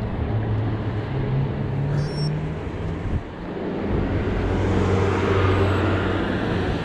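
A car's engine and tyres coming up from behind and passing close alongside a moving bicycle, growing louder over the last few seconds, over a steady rush of riding wind and road noise.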